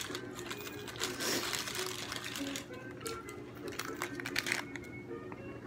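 Plastic cracker sleeve crinkling and rustling in two spells, about a second in and again from about three seconds to near the end, over faint background music.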